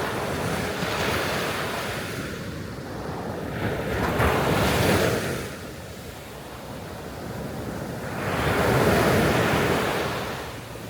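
Sea waves breaking and washing up a sandy beach, the surf swelling and fading in three surges about four seconds apart, the last and loudest near the end, with some wind on the microphone.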